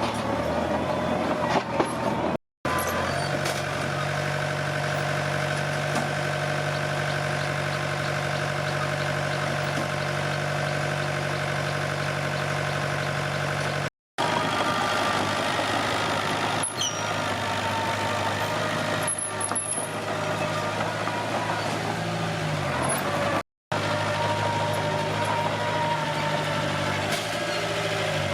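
Komatsu D21P bulldozer's diesel engine running steadily while working. The sound drops out completely three times for a split second at edit cuts.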